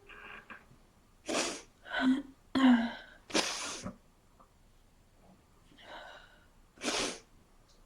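A man with a cold sneezing and catching his breath: a quick run of four short, breathy bursts in the first few seconds, then a faint one and a last sharp burst near the end.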